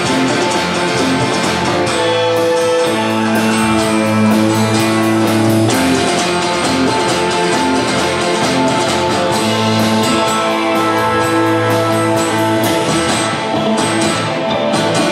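Live band music led by guitar, with a steady beat and no singing.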